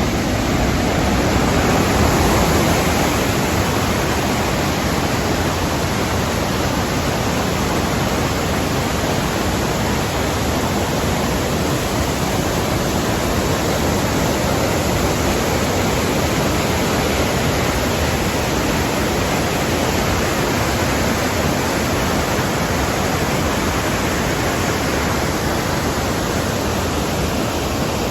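The Rhine Falls' water pouring over the falls: a loud, steady rush of water without a break.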